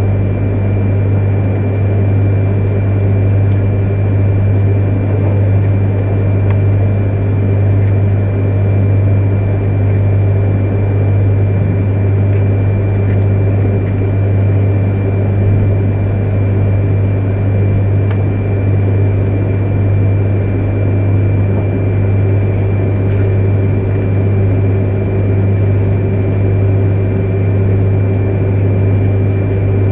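Steady running noise inside an E3-series Shinkansen car: a deep, even hum and rumble with a thin, high steady whine on top.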